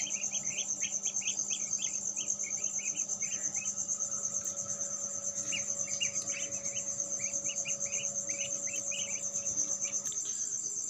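A cricket trilling steadily in a rapid, even pulse, over the low hum of the incubator's electric fans. Clusters of short high peeps come and go on top.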